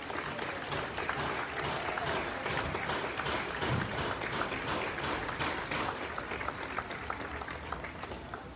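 A crowd applauding, the clapping gradually thinning and growing quieter.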